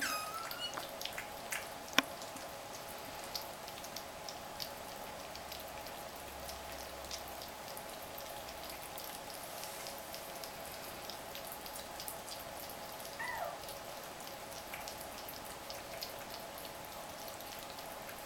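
Egyptian Mau kittens eating chopped meat from a white platter: a steady patter of small wet clicks and smacks from chewing and licking, with a sharp knock about two seconds in. A brief high squeak comes near the start and another about thirteen seconds in, over a steady background hum.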